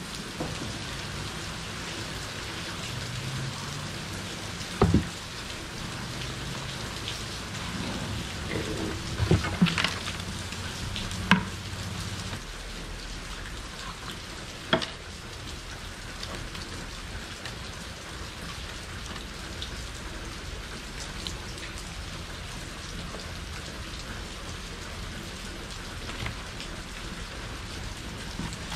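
Torrential rain falling steadily, with a few short sharp knocks between about five and fifteen seconds in.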